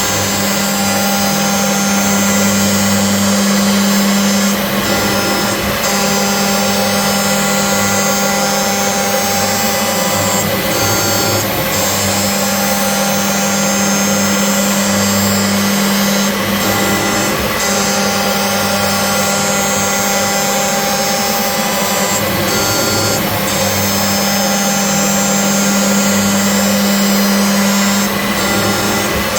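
CNC milling machine cutting steel with a 2 mm ball end mill on a finishing pass: a steady spindle whine with cutting noise, shifting briefly about every six seconds.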